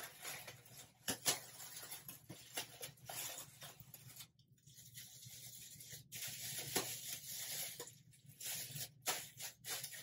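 Thin clear plastic cap crinkling and rustling in irregular bursts as it is pulled over damp, conditioned hair and adjusted by hand.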